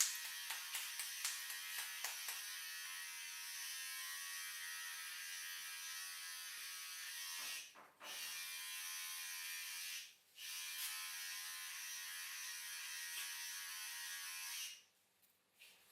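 Small handheld electric motor buzzing steadily, with a run of light taps in the first couple of seconds; it cuts out briefly twice and stops about fifteen seconds in.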